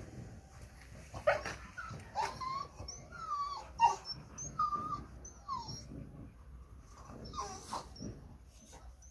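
Young American Staffordshire Terriers whimpering and yipping as they play-fight: a string of short, high, sliding cries, the loudest about a second and four seconds in.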